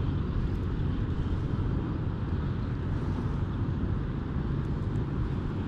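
Steady wind rumble buffeting the camera microphone, with a fainter hiss of outdoor background noise above it.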